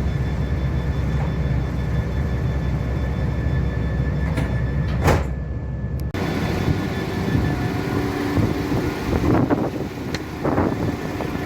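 A Class 172 diesel multiple unit running with a steady low rumble and a faint steady whine. About six seconds in, the sound changes abruptly to a rougher, noisier rumble with a few short knocks.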